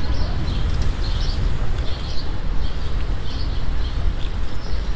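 Steady low rumble of wind and street traffic heard from a moving bicycle, with birds chirping several times over it.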